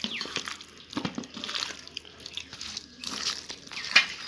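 Wet, irregular squishing and clicking of hands mixing raw country chicken pieces into a thick marinade of spice powders, ginger-garlic paste, egg and lemon juice.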